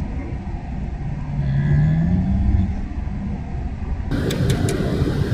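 Road and engine noise heard from inside a moving car at highway speed: a steady low rumble, with a hum that rises in pitch for about a second midway, and a few light clicks near the end.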